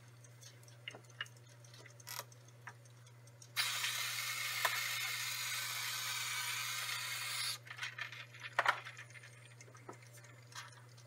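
Laboratory vacuum aspirator line with a pipette tip hissing steadily for about four seconds, starting and stopping abruptly, while drawing the PEG mix off a yeast cell pellet. Light clicks of plastic microcentrifuge tubes being handled come before and after.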